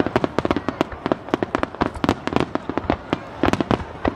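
Fireworks going off in rapid succession: a dense run of sharp cracks and pops, several every second.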